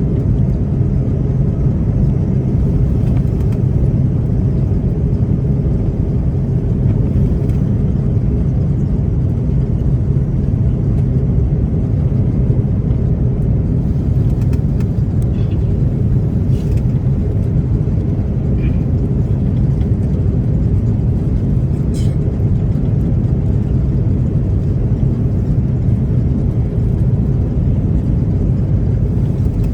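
Steady low rumble of airflow and Pratt & Whitney PW4000 engines inside the cabin of an Airbus A330-300 on approach, with a few faint clicks in the second half.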